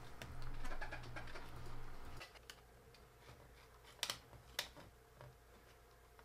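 Faint handling sounds from fingers and a small screwdriver tucking foam pads around a MacBook's metal battery-compartment bracket: a soft rustling scrape for about two seconds, then two small clicks about four seconds in.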